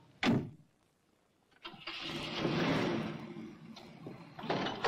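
A car door thuds shut, then after a second's pause a car engine starts and runs, loudest just after it catches and then easing off, with another short knock near the end.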